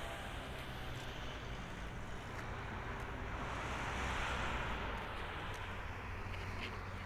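The Rolls-Royce Trent 700 turbofans of an Airbus A330-300 running at low taxi thrust as the airliner lines up on the runway. It is a steady jet hiss over a low rumble, and it swells briefly about halfway through as the aircraft swings round toward the listener.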